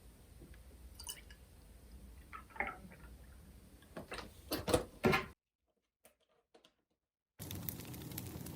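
A few scattered knocks and handling noises, then a short dead silence, then a wood fire starts crackling steadily with many small pops near the end.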